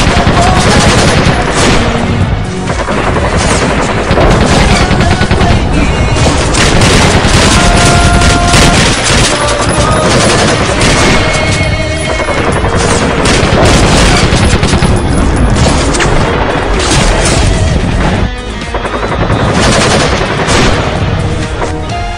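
Long runs of rapid machine-gun fire, added as sound effects, over background music.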